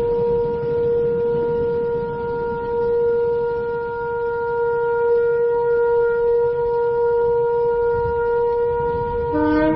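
Shofar blowing one long, steady held note. Near the end a second, lower horn note comes in over it.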